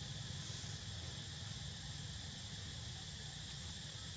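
Steady insect chorus, a constant high hiss with no breaks, over a low, even rumble.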